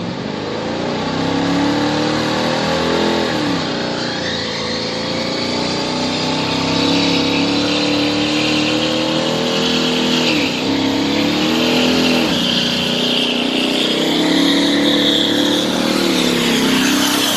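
A vehicle engine accelerating, its pitch climbing steadily and then dropping sharply at gear changes, about three seconds in, around ten and a half seconds and again near twelve seconds.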